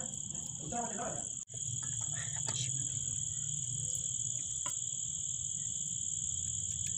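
Crickets chirping steadily in a continuous high trill, with a low steady hum underneath after about a second and a half.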